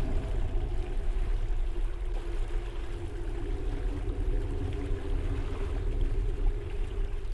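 Dark ambient drone: a deep steady rumble under faint wavering held tones.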